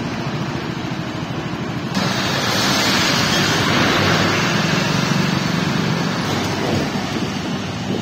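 Road traffic on a rain-wet street: a steady wash of vehicle engines and tyre noise. About two seconds in it jumps to a louder, brighter hiss of tyres on the wet road.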